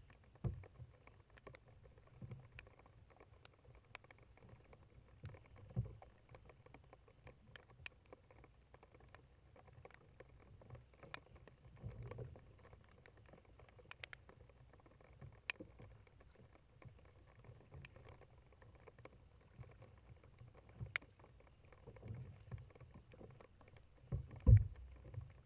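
Kayak being paddled on calm water: quiet paddle strokes in the water, with scattered small clicks and dull thumps every few seconds, the loudest thump near the end.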